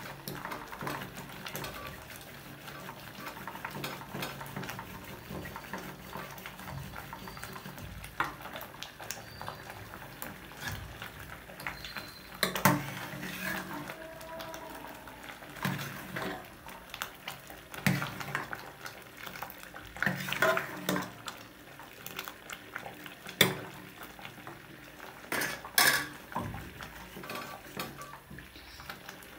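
Thick stinging-nettle (sisnu) mash being churned in a metal pot with a wooden twig-headed stick twirled between the palms, a steady soft stirring noise. Now and then a metal spoon knocks sharply against the pot, about seven times.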